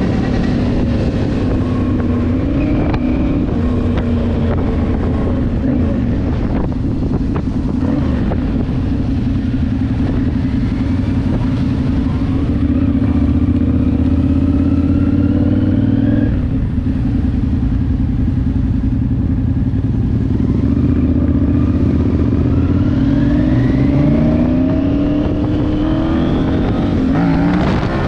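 A group of motorcycles riding past with their engines running together in a steady drone. Several of them rev up, rising in pitch over a few seconds.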